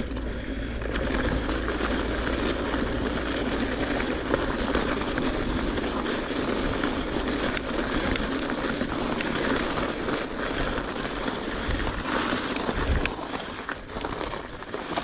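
Mountain bike rolling along a dirt trail: steady noise of the tyres with many small clicks and rattles from the bike. A low wind rumble on the microphone eases off about halfway through.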